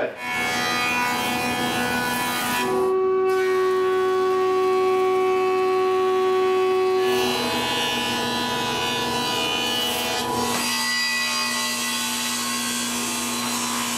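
Stationary woodworking machines milling poplar, first a thickness planer and then a table saw, each a steady motor hum under the hiss of the cut. The pitch and character of the sound change abruptly three times.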